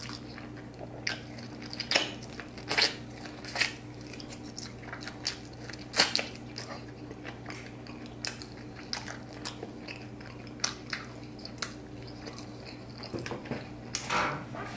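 A person biting and chewing deep-fried pork spare ribs close to the microphone: irregular crisp crunches and mouth clicks, the loudest about two seconds and six seconds in. A low steady hum runs underneath.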